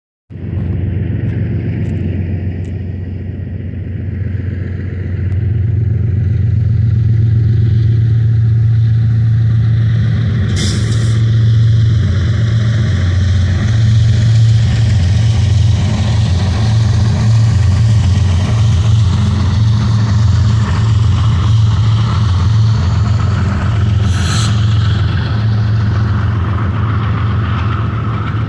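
Diesel engines of BNSF GE ES44-series freight locomotives (V12 GEVO engines) pulling an intermodal train, a steady low drone that grows louder about five seconds in as the train nears. Two brief hisses stand out over it.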